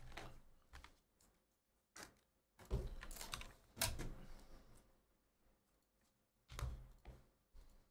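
Faint computer keyboard typing and key clicks in short scattered clusters, the loudest clatter about three to four seconds in: keystrokes copying and pasting text between a browser and a spreadsheet.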